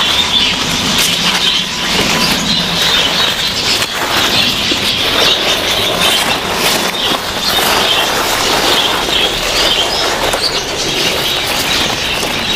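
Rain falling steadily on the garden's leaves: a dense, even hiss with many small drop taps.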